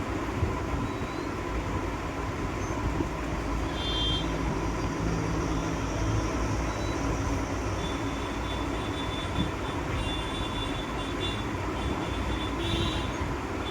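Steady motor-vehicle engine noise, a continuous rumble with a few faint high ringing tones over it.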